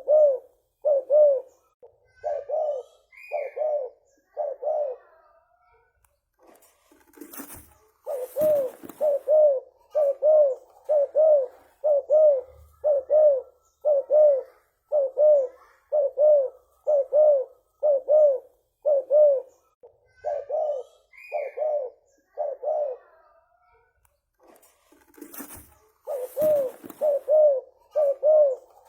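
Spotted dove (tekukur) cooing in long runs of short, even coo notes, about two a second, with a pause twice. Two brief bursts of noise break in, near a quarter of the way in and near the end.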